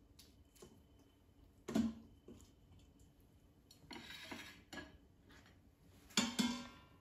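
Kitchen utensil clinking and scraping in the stainless steel inner pot of an Instant Pot and on a plate as cooked fish fillets are lifted out. A scrape comes about four seconds in, and there are a few sharp knocks, the loudest a close pair near the end.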